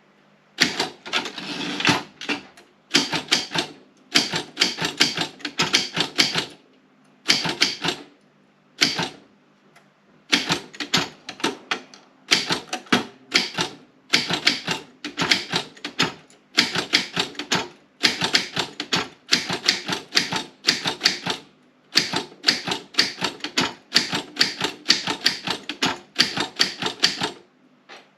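Optima M16 manual typewriter being typed on: rapid runs of sharp key-and-typebar strikes in bursts of a second or two, with brief pauses between words.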